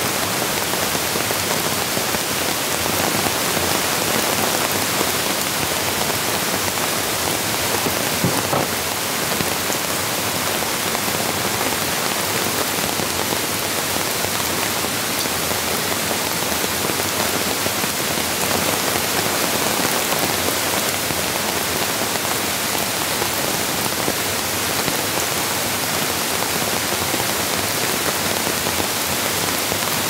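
Steady rain falling, an even hiss of drops with no letup.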